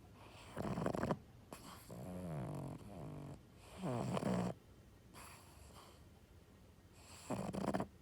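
A sleeping pug snoring: a run of rasping breaths, some with a wavering pitched tone, with a longer pause before the last snore near the end.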